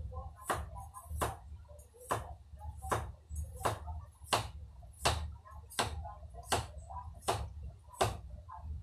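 Sharp clicks or knocks repeating at an even, unhurried pace, about four every three seconds, over a low hum.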